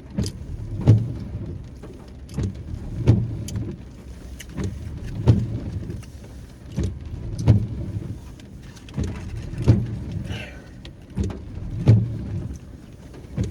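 Windshield wipers sweeping in the rain inside a car: a low thump at each end of every sweep, a stronger one about every two seconds, over a steady cabin hum.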